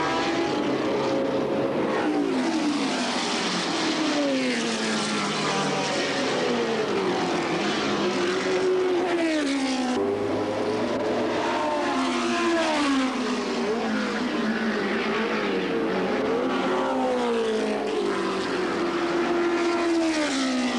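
Historic sports racing cars' engines at high revs, several overlapping, their pitch climbing and dropping again and again as the cars accelerate, shift gears and slow for corners.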